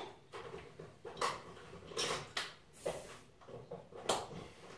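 A handful of short clicks and knocks, spaced irregularly, from small hard objects being handled.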